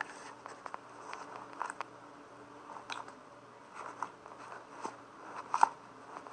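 Homemade glue slime being squished and stretched in the hands, giving irregular small clicks and wet pops, with a louder cluster of pops near the end.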